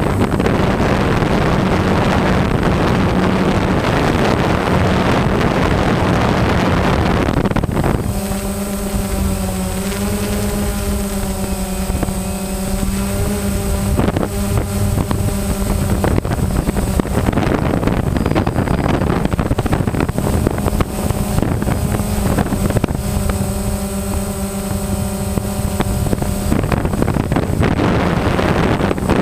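DJI Phantom quadcopter's motors and propellers buzzing steadily as it hovers, heard through its own onboard camera with wind rushing over the microphone. From about eight seconds in to near the end, a clearer humming pitch with overtones wavers slightly as the rotor speeds shift.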